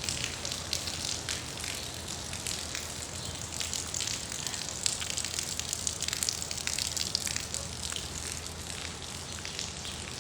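Steady rain, a dense hiss of falling water with many sharp individual drop hits.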